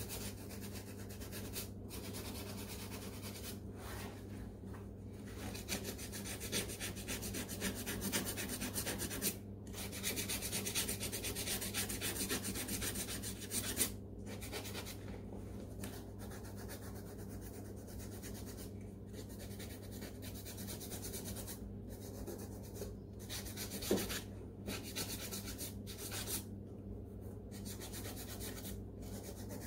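Sandpaper rubbed by hand over the leather upper of a Nike Air Force 1 sneaker, fast back-and-forth scraping strokes with short pauses every few seconds: scuffing the factory finish to prepare the surface for paint. A steady low hum runs underneath.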